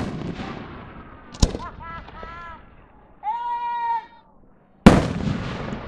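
Aerial firework shells bursting. The rumble of a boom dies away, a sharp crack comes about a second and a half in, and another loud boom with a rolling echo comes about five seconds in. Between them, spectators' voices call out, including one drawn-out high 'ooh' lasting under a second.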